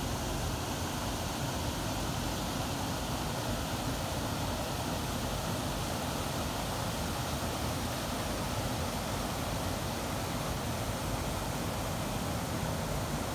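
Water pouring over a low stepped river weir: a steady, unbroken rushing noise.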